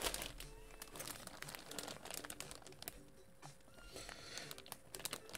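Clear plastic bag crinkling in quick, irregular crackles as hands lift and handle a bagged jersey, over faint background music.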